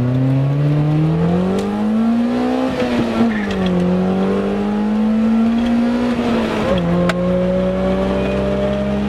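Toyota Corolla's swapped-in 3S-GE BEAMS four-cylinder engine pulling hard through the gears, heard from inside the cabin. The revs climb, fall sharply at an upshift about three seconds in, climb again, fall at a second upshift near seven seconds, then rise slowly.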